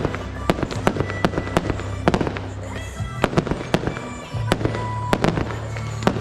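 Fireworks display: many irregular bangs and crackles of bursting shells, several a second, over music with a steady bass line.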